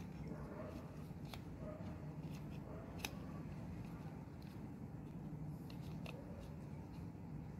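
Light, scattered clicks and rattles of a magnetic contactor's plastic housing and metal contact pieces being handled and fitted together, with a sharper click about three seconds in, over a steady low hum.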